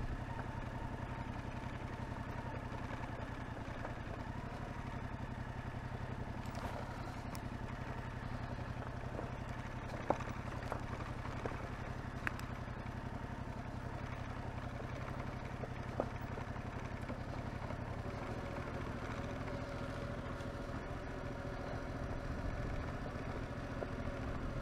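Yamaha Tracer 7's parallel-twin engine running steadily under way, with a few short sharp clicks; the engine note shifts about three quarters of the way through.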